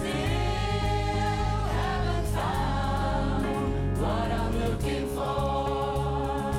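Singing voices with band accompaniment: a song performed live, the voice rising and falling over a steady backing.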